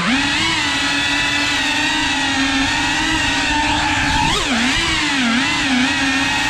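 Cinewhoop FPV drone's motors and ducted propellers whining, a steady buzzing whine that dips and swings back up in pitch as the throttle changes, once at the start and several times in the last two seconds.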